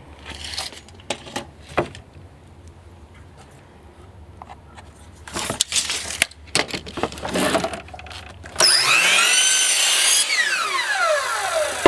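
Woodworking tool sounds: scattered knocks and scraping strokes, then a loud power tool running for nearly two seconds and winding down with a falling whine.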